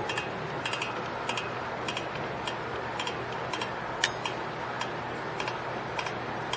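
A 2010 Toyota Corolla's rear drum-brake self-adjuster, its lever clicking over the star wheel as the adjuster is wound out by hand: a run of light clicks, about two or three a second, somewhat uneven. The clicking means the adjuster lever is now making contact with the star wheel instead of popping out.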